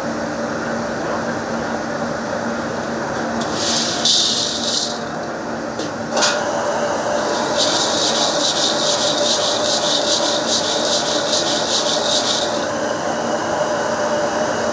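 Smooth pebbles being stirred and scraped around a hot steel wok with a spatula, heating them for stone-baked shrimp: a short gritty scrape about four seconds in, then a long dense rattle of stones on steel from about eight to thirteen seconds, over a steady background rush.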